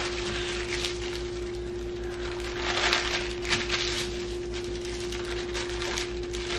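Irregular crinkling and rustling of paper sandwich wrappers and napkins being handled, over a steady low hum.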